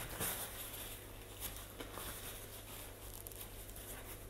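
Faint rustling of a paper tissue being handled and pressed to the face, with a few small clicks.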